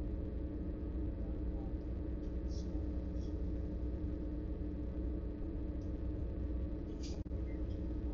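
A motor running steadily, a low drone with several fixed tones in it, with a few brief soft hisses on top.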